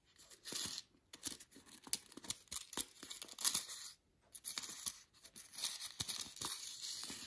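Cardstock jewelry card rustling and scraping in the hands as a fine gold chain is worked through its slots, with small irregular clicks and ticks.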